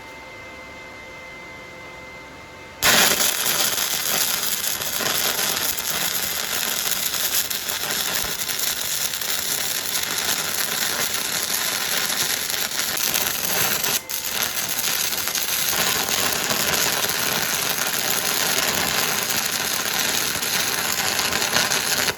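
Electric welding arc crackling steadily once it strikes, about three seconds in, with one brief break in the arc about fourteen seconds in.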